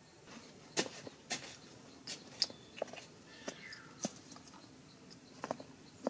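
Parrots pecking and gnawing at tree bark by their nest hole: irregular sharp clicks and scrapes. A soft descending bird call comes about three and a half seconds in.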